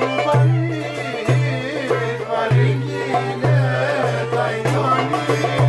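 Greek folk music played on violin, lute and percussion: a winding bowed melody over a low repeating beat.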